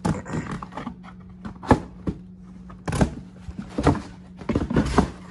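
Cardboard mailer box being handled and pried open with one hand: cardboard scraping and rubbing, with several sharp knocks and taps of the lid, under a steady low hum.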